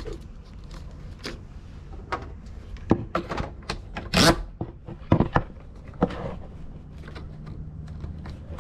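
Plastic clicks and knocks at irregular intervals, loudest a little past halfway, as Exitrax recovery-board mounting pins and security clips are pressed down and twisted to lock them in.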